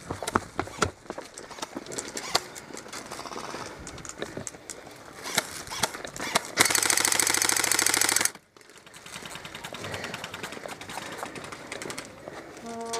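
Airsoft electric gun firing a full-auto burst of about a second and a half, a fast even rattle that cuts off sharply, amid scattered clicks and knocks from other shots and movement.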